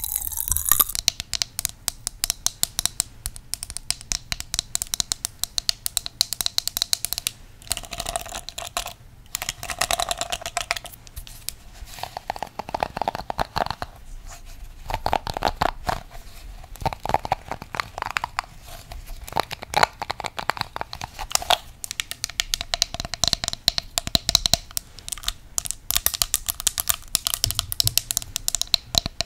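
A unicorn comb worked close to the microphone as an ASMR trigger: a dense run of short scratches and clicks with a couple of brief pauses.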